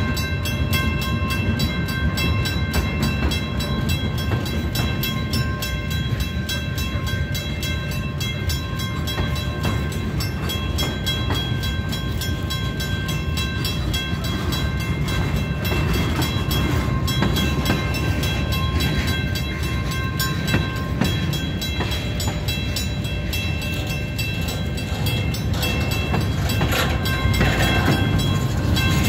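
Freight train of boxcars and a centerbeam lumber flatcar rolling steadily through a grade crossing, with a low rumble of wheels on the rails. Over it the crossing signal's bell rings steadily in rapid strokes.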